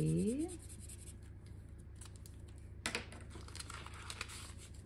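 Marker pen scratching on a paper card as circles are coloured in, then a sharp click about three seconds in and a run of light clicks and rustles as the paper card and its plastic sleeve are handled.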